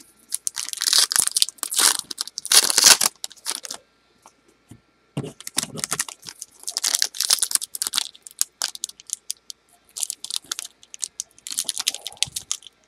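Crinkling and tearing of a trading-card pack's foil wrapper being pulled at by hand, in three spells of crackly rustling; the pack is stubborn to open.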